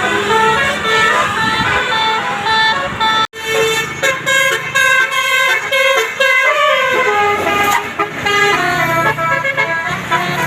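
Basuri musical bus horn playing a quick tune of short held notes that step up and down in pitch, with a brief sudden break about three seconds in.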